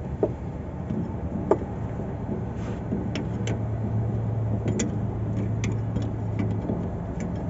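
Scattered sharp metallic clicks and knocks of hand tools working on a wheel loader's parking brake, over a steady low hum; a steadier low tone in the hum comes in about three and a half seconds in and drops away near the end.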